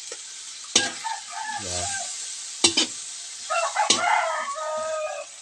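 A metal ladle clanks against a wok three times as greens are stirred over a steady sizzle. A rooster crows in one long call starting about three and a half seconds in.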